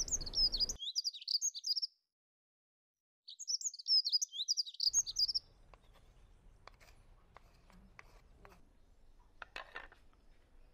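Small birds twittering in quick, high chirping phrases, twice, with a short gap of silence between. Afterwards only faint, scattered clicks and taps of a wooden spatula and bowls as soaked sago is scooped into a glass dish.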